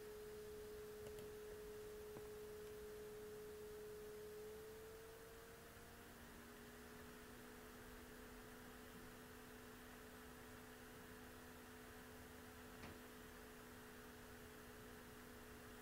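Near silence with a faint steady hum-like tone that glides slightly higher in pitch about five seconds in, a lower tone joining it; one faint click near the end.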